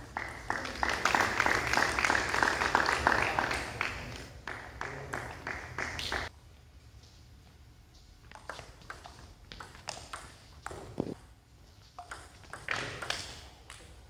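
A few people clapping hard for several seconds, cutting off abruptly. Then single clicks of a table tennis ball off bats and table during a rally.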